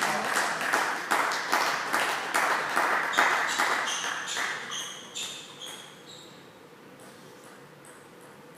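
A few spectators clapping after a point, with a table tennis ball bouncing and pinging between the claps; it dies away about six seconds in, leaving the quiet hum of the hall.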